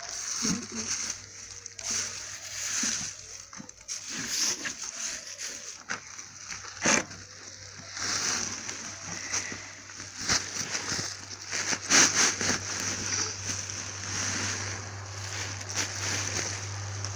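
Chopped grass being poured from a sack into a wooden feed trough and stirred by hand: a continuous dry rustling pour with a few sharper knocks against the trough.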